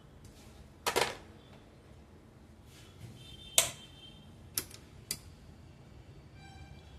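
A handful of sharp clicks and knocks from a small Lenovo laptop being handled on a repair bench: a double knock about a second in, the loudest about halfway through, and two lighter ones after it.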